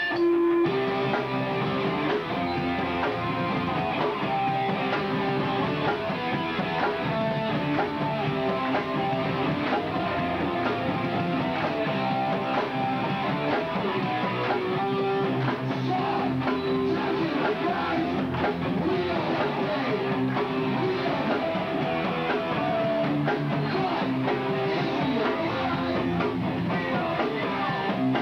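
Hardcore punk band playing live: electric guitars and drum kit, loud and steady, with no break in the music.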